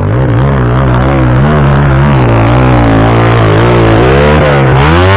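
Dirt bike engine revving hard under load as it climbs a steep hill, its pitch rising and falling over and over as the throttle is worked, then rising sharply near the end.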